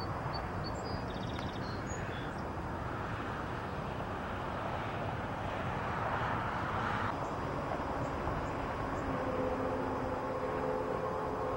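Distant approaching train: a steady low rumble, with a faint horn chord of several notes coming in about nine seconds in.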